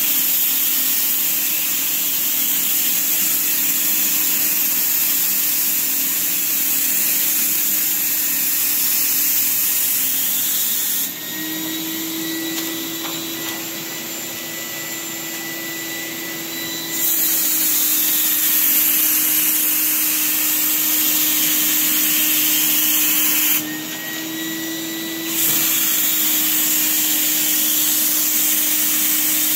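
Paint spray gun spraying a base coat: a steady hiss of air and paint over a constant motor hum from the spray unit. Twice the spraying stops, for about six seconds in the middle and briefly near the end, and the hiss drops while the hum rises slightly in pitch.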